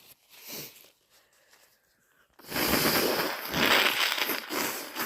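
A person with a head cold blowing their nose hard into a tissue: one long, thick, wet blow that starts about halfway through and lasts a couple of seconds.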